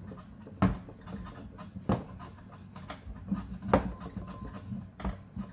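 Rolling pin pressed and rolled over slices of bread on a plastic cutting board, flattening them thin. There is a low rubbing under the rolling and four sharp knocks about a second or more apart as the pin meets the board.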